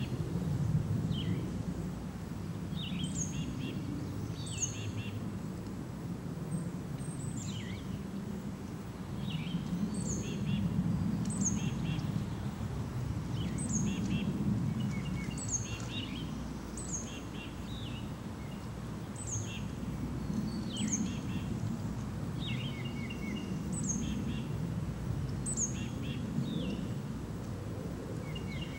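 A small songbird singing short repeated phrases, each a high downward-sliding note followed by a few lower chirps, about once every one to two seconds. Under it runs a steady low rumble of background noise.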